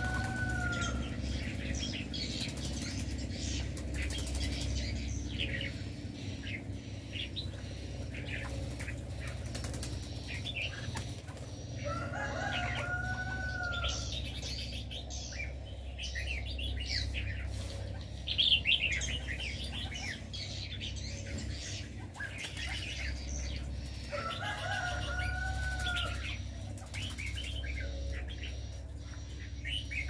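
Aviary birds chirping and twittering continuously, with wing flutters. A longer call that rises, holds and falls comes three times, about twelve seconds apart, and there is a brief louder clatter about eighteen seconds in, all over a steady low rumble.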